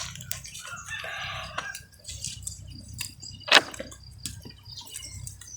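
A rooster crowing once, a drawn-out call of about a second and a half starting about half a second in. Scattered sharp clicks follow, the loudest a single knock about three and a half seconds in.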